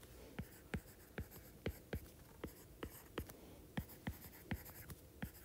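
Faint, quick taps of a stylus tip on a tablet screen while handwriting words, about three ticks a second at an uneven pace.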